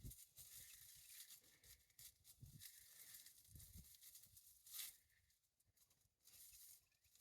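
Faint, irregular rustling and crackling, with a few soft low thumps and one sharper crackle just before five seconds in.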